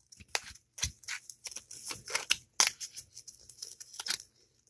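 A paper sticky note being folded and creased by hand: irregular short crinkles and rustles of the paper.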